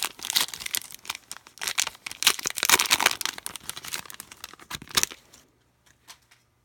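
Plastic wrapper of a trading-card pack crinkling and being torn open, a dense crackle that stops about five seconds in, followed by a few light taps.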